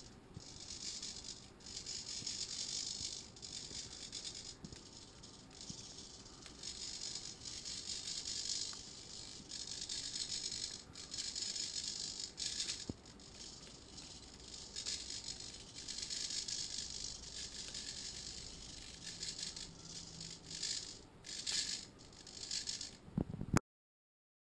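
Hobby servos of a shoulder-mounted pan-tilt camera mount running in short spurts of a second or two with brief pauses, driven by a headtracker as the head turns. The sound cuts off near the end.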